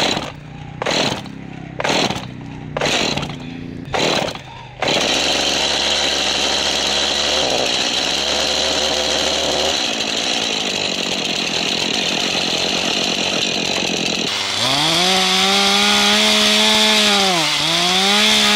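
Stihl two-stroke chainsaw being pull-started: about six pulls of the starter cord, roughly one a second, before the engine catches about five seconds in. It then idles steadily and is revved up twice near the end.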